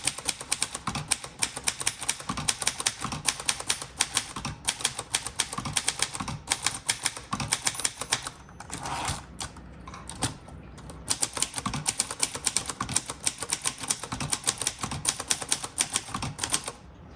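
Rapid, even typing on a 1961 Royal Forward manual portable typewriter, the typebars striking the platen several times a second, with a short lull a little past halfway before the keystrokes resume.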